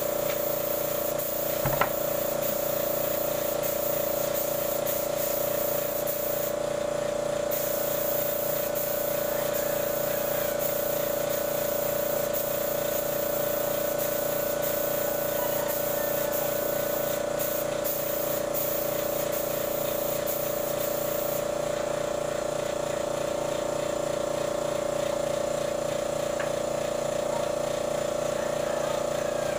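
Electric air compressor running steadily: a constant hum with a hiss of air over it. There is one short knock about two seconds in.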